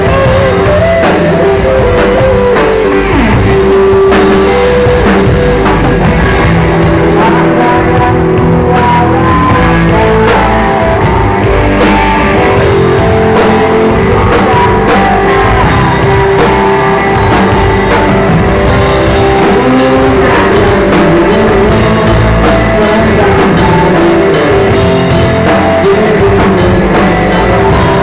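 Live rock band playing an instrumental passage: electric guitar melody lines with bends, over bass and drum kit.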